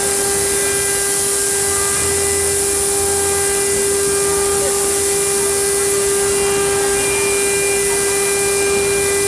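CNC router spindle cutting a grid pattern of holes into a metal sheet: a steady whine at one pitch under a loud, steady high hiss from the cut.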